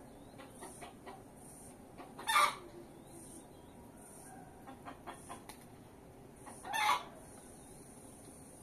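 Domestic chickens clucking, with two short loud calls, about two and a half and seven seconds in.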